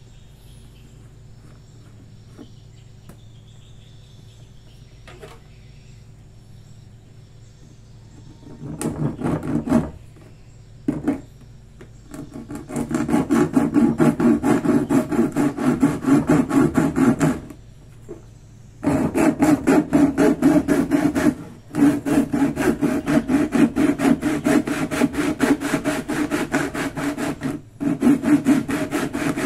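Hand saw cutting through the top of a red plastic jerrycan in rapid back-and-forth strokes. The strokes start about nine seconds in, after low background only, and come in runs separated by short pauses.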